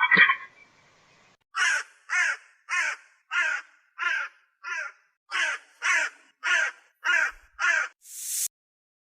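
A short loud burst, then a bird giving a run of about eleven harsh calls, evenly spaced a little over half a second apart. A rising hiss near the end cuts off suddenly.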